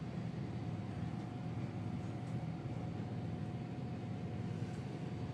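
Steady low rumble of store background noise, such as the building's air handling, with a faint thin steady tone over it.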